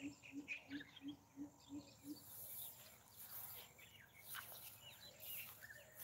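Faint outdoor ambience with birds chirping. A low call repeats about three times a second and stops about two seconds in, then a faint high hiss.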